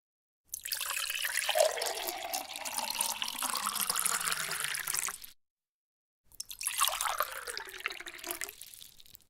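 Water being poured into a container, twice: a first pour of about five seconds, then after a second of silence a shorter second pour.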